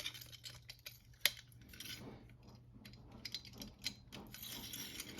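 Small clicks and light rattling of a pepper grinder's parts being handled and pushed together by hand, with one sharper click about a second in.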